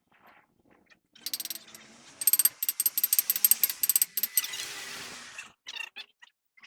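Runs of rapid, sharp metallic clicking from mechanical work, starting about a second in, followed near the end by about a second of hiss.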